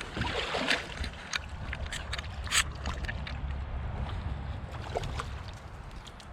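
Water splashing, with scattered clicks and knocks and a steady low wind rumble on the microphone, while a hooked trout is landed.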